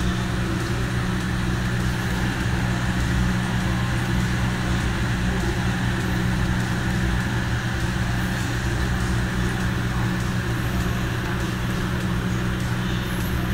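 A steady low mechanical hum made of a few held low tones, unchanging in level.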